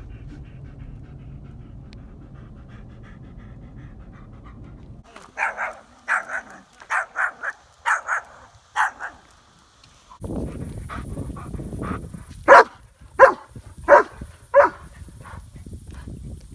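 Car cabin road noise for the first few seconds, then a dog barking in two bouts: a quick run of barks, then after a pause four louder, evenly spaced barks over low background rumble.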